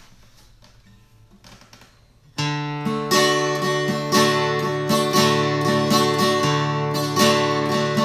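Acoustic guitar strummed, beginning the song's intro about two and a half seconds in after a few faint, quiet moments; chords ring on with steady, evenly spaced strokes.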